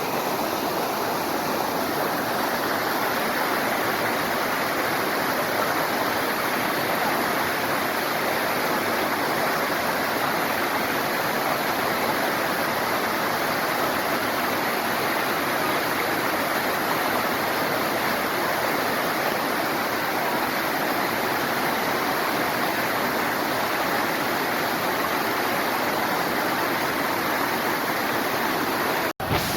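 Flowing stream water rushing steadily. A split-second gap breaks it near the end.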